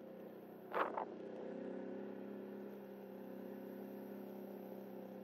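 Vehicle engine running steadily at low speed, a low even hum, with a brief sharper sound just under a second in.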